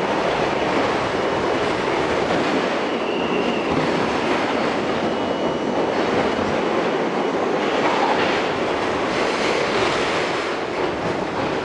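Inside an R42 subway car running through a tunnel: a steady rumble and clatter of steel wheels on the rails, with a faint high wheel squeal a few seconds in.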